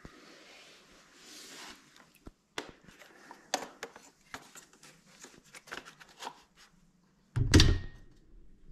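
Hands handling a camera mount and metal parts: scattered light clicks and knocks, with one louder bump of handling noise about seven seconds in.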